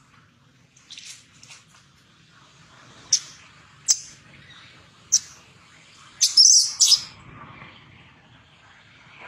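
Baby macaque giving a series of short, shrill distress squeals, the longest and loudest about six seconds in.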